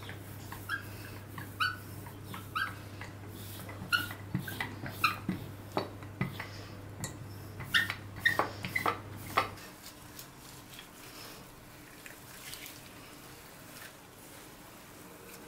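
Small wooden hand roller worked over bread dough on a countertop, with sharp knocks and about a dozen short high squeaks in the first ten seconds. A steady low hum stops about ten seconds in, and only soft handling sounds follow.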